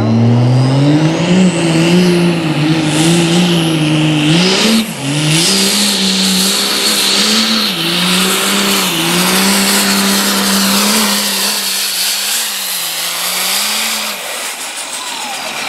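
Turbocharged diesel pickup engine pulling a sled at high revs under heavy load, with a turbo whine rising as the pull begins. The revs stumble and surge about five seconds in, then the engine note drops away near the end as the pull finishes.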